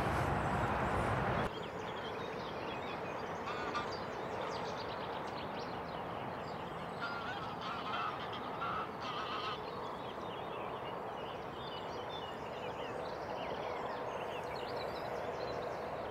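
Lakeside morning ambience: a steady hum of distant road traffic, with scattered bird calls and chirps over it. Through the first second and a half the handling of fishing tackle in a rod holdall is louder, then stops abruptly.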